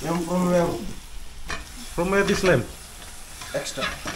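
Raw lamb pieces sizzling as they go into hot oil and frying onions in a metal pot and are stirred, with a sharp metal clink about one and a half seconds in. Three short voice sounds come over the sizzle.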